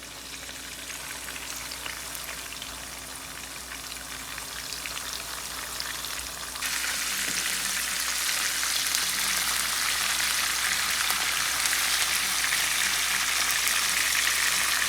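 Steak frying in hot grease in a pan with onions and green peppers: a steady crackling sizzle that jumps suddenly louder about two-thirds of the way through.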